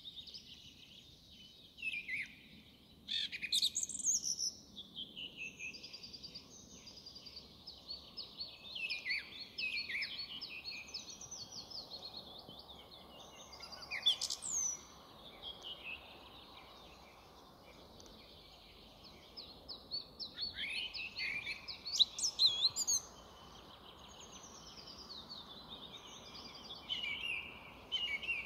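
Song thrush singing: a varied series of whistled phrases, each short note pattern repeated several times before the next, with a gap of a few seconds around the middle.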